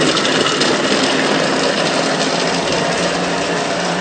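Thermomix kitchen machine running at speed 5, its blades chopping pieces of carrot in the mixing bowl: a loud, steady motor whirr.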